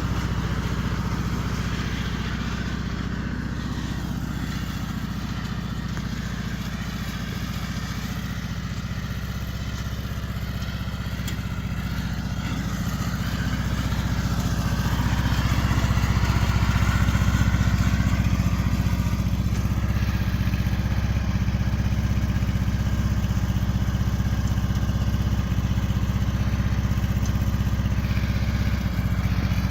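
Riding lawn mower's small engine running steadily, getting louder about halfway through and staying there.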